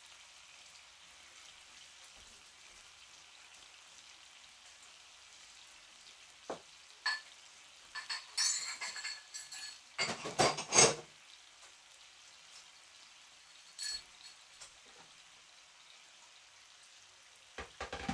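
Marinated pork belly slices sizzling steadily in a skillet. A run of sharp clinks and knocks from a utensil and dishes comes in the middle, loudest about ten to eleven seconds in, with a few more clinks near the end.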